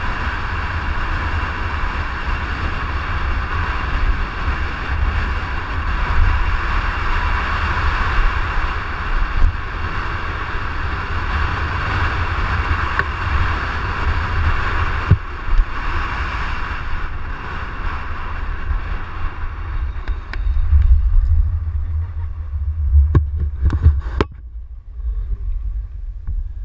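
Inline skate wheels rolling over asphalt at speed, a steady whir, under wind buffeting the microphone. The whir fades after about fifteen seconds, and a few brief sharp sounds come about three-quarters of the way through.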